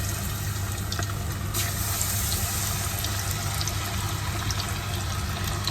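Batter-coated chicken pieces sizzling steadily in hot cooking oil, with a few faint pops, over a steady low hum.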